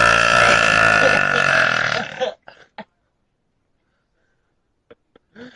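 A man's long, loud burp on a steady pitch that breaks off a little over two seconds in, followed by a couple of short clicks near the end.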